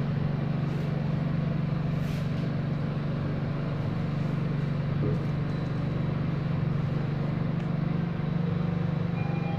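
Steady low hum inside an elevator car as it rides upward several floors.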